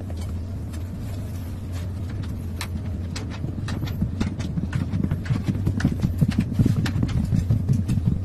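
Large wooden cat exercise wheel turning with a kitten running inside it: a steady low rumble from the wheel rolling, with many quick thumps and clicks that grow louder and more frequent in the second half.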